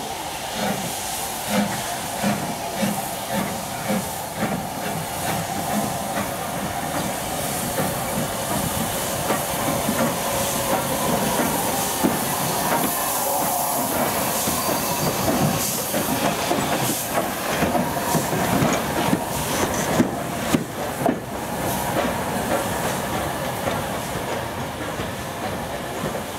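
Steam locomotive No. 53809, a Somerset & Dorset 7F 2-8-0, running slowly into a station. Regular exhaust chuffs in the first few seconds sit over a steady hiss of steam and the running noise of the train, with a few sharp metallic clanks about three-quarters of the way through.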